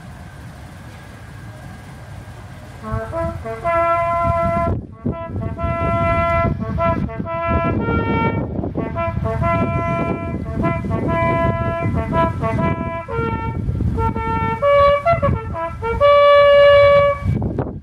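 A bugle call played solo on a bugle: a series of single sustained notes, beginning about three seconds in and ending on a long, loud held note just before the end.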